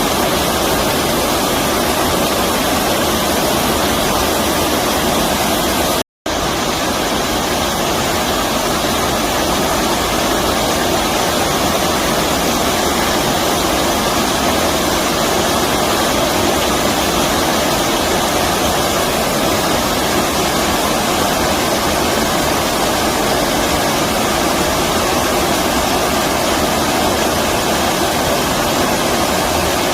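Stream water rushing steadily, a dense even wash of flowing water. It cuts out for a split second about six seconds in.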